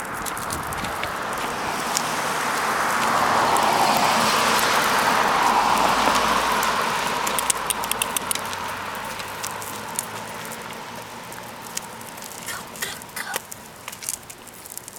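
A car passing on the street: tyre and road noise swells to a peak a few seconds in, then slowly fades away. Light clicks and taps follow in the second half.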